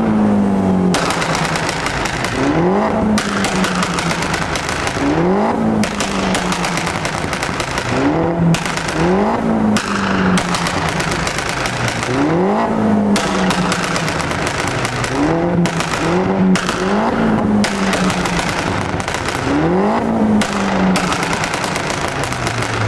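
Peugeot 208 GTI's 1.6-litre turbo four-cylinder revved again and again while stationary, short rev blips every second or two. As each rev drops off, the Deutsch Tech single-resonator exhaust crackles and pops rapidly: the pops-and-bangs overrun from its remap.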